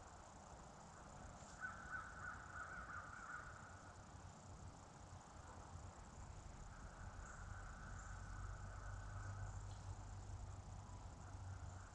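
Faint woodland ambience: a steady high insect hum under a low rumble, with animal calls swelling twice for a couple of seconds, about two seconds in and again past the middle.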